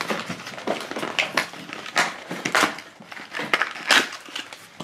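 Plastic blister packaging of a toy capsule crinkling and crackling as it is handled, in a string of irregular sharp rustles.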